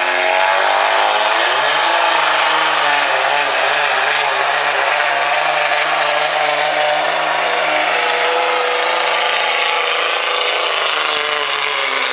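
Dodge Ram pickup's common-rail Cummins diesel engine at full throttle under heavy load, pulling a weight sled: the revs climb over the first couple of seconds, then hold high and steady as the truck drags the sled down the track.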